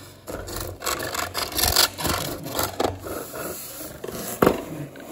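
Cardboard box and plastic track pieces being handled, making a string of irregular rubbing and scraping sounds, with one sharp knock about four and a half seconds in.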